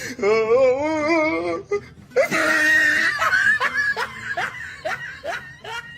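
A person laughing hard: first a long wavering laugh, then a run of short rising, breathy whoops.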